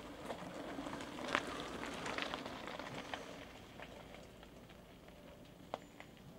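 Mountain bike tyres crunching over a gravel track as riders pedal past close by, with scattered small clicks and rattles. It is loudest in the first few seconds, then fainter, with one sharp click near the end.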